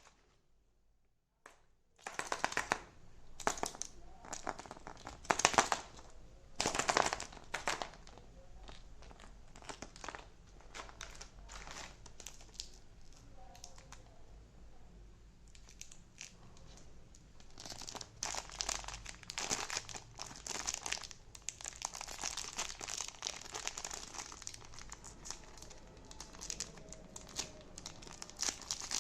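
Kinder Joy egg wrappers being crinkled and torn open by hand: a dense run of sharp crackles that starts about two seconds in, thins out in the middle and picks up again near the end.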